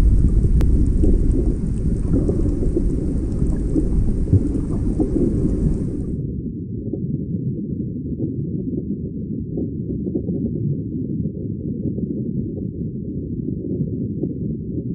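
A deep, steady rumbling noise, with a fainter hiss over it that cuts off suddenly about six seconds in.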